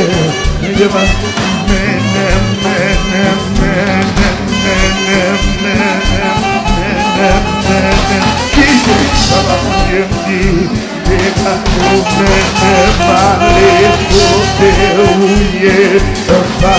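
Gospel hymn music with a steady beat and instruments playing.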